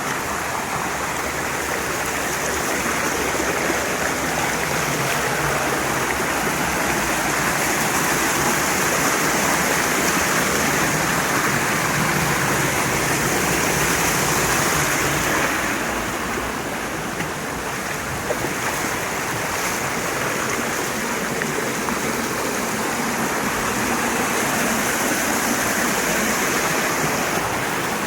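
Mountain stream water rushing steadily over rocks, dipping slightly partway through.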